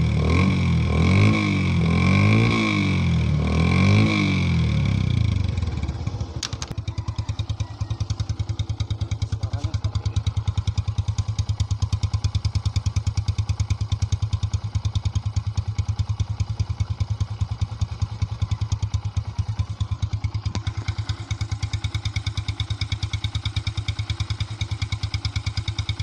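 Yamaha Byson's single-cylinder engine run through a cut-down exhaust with the muffler removed. It is revved three times, pitch rising and falling, over the first five seconds, then settles to a steady, fast-pulsing idle.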